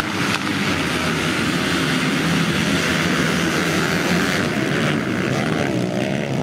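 A field of junior motocross bikes, a mix of two-stroke and four-stroke engines, revving hard and accelerating away together off the start line. The high rasp of the engines thins out near the end as the pack pulls away.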